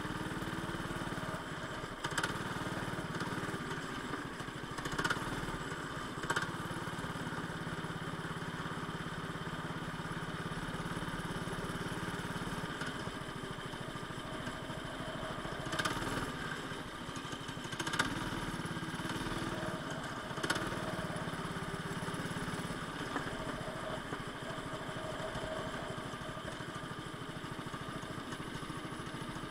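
A go-kart engine heard from on board, running at speed on the track, its note rising and falling with the throttle. Several brief sharp knocks stand out above it.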